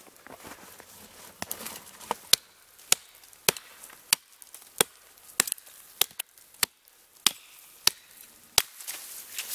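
Chopping into a small standing sapling with a GRIP 1.25 lb fiberglass-handled camping hatchet. The sharp blows come in a steady rhythm, about one every 0.6 seconds, starting about a second and a half in.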